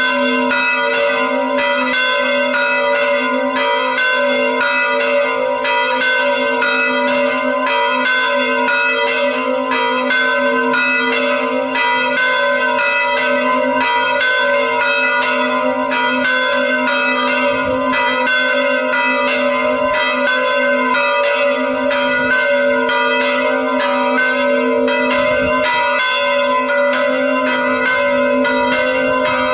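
The two largest of a church's three electrically swung bells ringing together in full swing, their strokes overlapping in a continuous peal. This is the quarter-to-six call to the pre-festive Mass.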